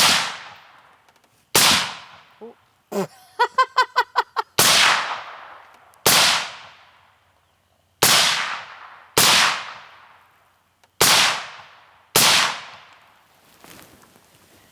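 Eight gunshots fired one after another at uneven intervals of one to two seconds, each with a long echo trailing off. None sets off the Tannerite target.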